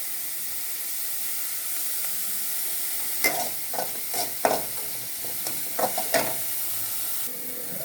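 Chopped onion sizzling in hot oil and butter in a kadai as it is sautéed, a steady frying hiss. From about three seconds in, a spatula scrapes and knocks against the pan several times as the onion is stirred.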